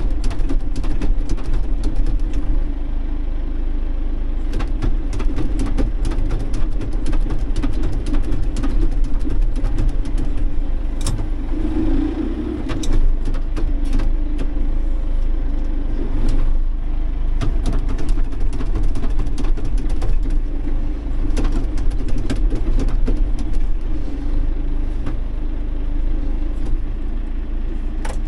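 John Deere tractor engine running steadily under load, heard from inside the cab, with frequent sharp clicks and knocks throughout as the front loader works.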